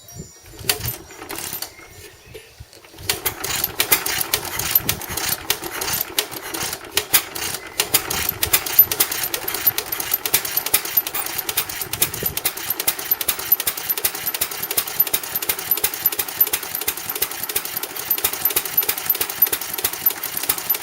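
Vintage Amanco stationary engine with battery-and-coil ignition being started warm, its cooling water already hot: a few knocks over the first three seconds, then it catches about three seconds in and keeps running with a steady, fast clatter.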